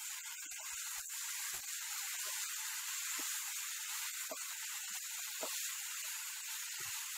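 Tomatoes and coriander leaves frying in a pan, a steady sizzle, while a wooden spatula stirs them, with a few faint knocks of the spatula on the pan.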